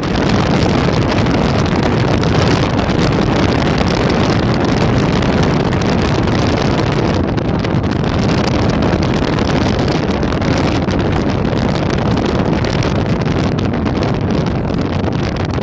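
Loud, steady wind noise buffeting a phone microphone, a low rumble without a break.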